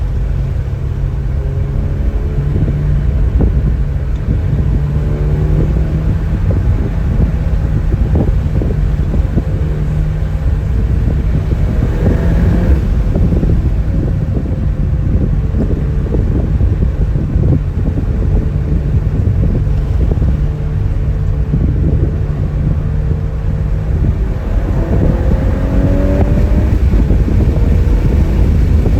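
2024 VW Golf R being driven, its turbocharged four-cylinder engine running under steady road rumble. The engine note steps in pitch a few times, and the revs rise near the end.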